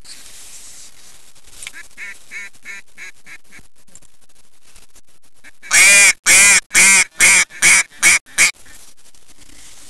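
Duck quacking: a faint run of quacks in the first few seconds, then about eight loud quacks from about six seconds in, each shorter and quicker than the one before, in the falling series of a mallard hen's call.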